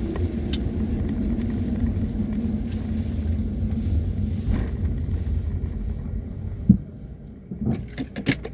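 A steady low rumble with a faint hum, broken by one sharp thump about seven seconds in; after it the rumble drops away and a few short knocks and clicks follow.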